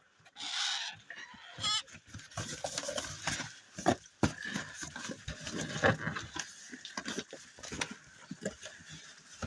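Scuffling, rustling and irregular knocks as a young magpie is caught and handled, with a short rush of noise about half a second in.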